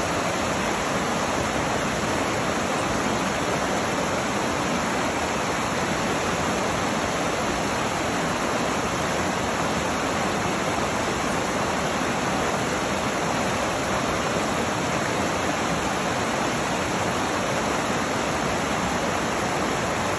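Mountain creek rushing and splashing over boulders in small cascades: a steady, unbroken rush of water.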